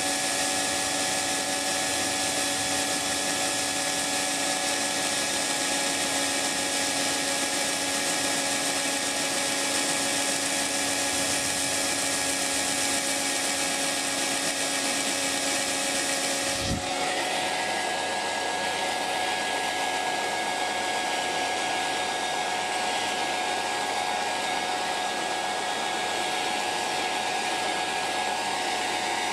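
Hair dryer running steadily: a constant rush of air over the motor's steady hum. About two-thirds of the way through, a brief thump comes, and the sound abruptly changes character, duller and with a stronger mid-pitched whine.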